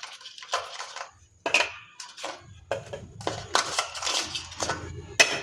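Crisp fried papri wafers crunching and crackling as they are handled and set down on a steel plate, in a string of irregular crunches.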